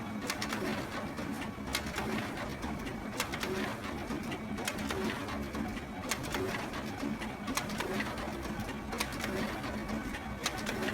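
Photocopier running: a steady mechanical hum with a sharp click about every second and a half.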